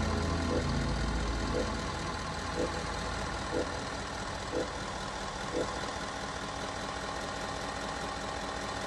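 A vehicle engine idling steadily. A faint tick repeats about once a second for the first several seconds, and a deeper rumble fades out early on.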